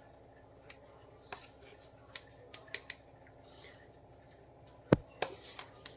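Light clicks and taps of a plastic measuring spoon against spice containers and a steel pot as chilli powder is scooped and tipped in, with two sharper knocks about five seconds in.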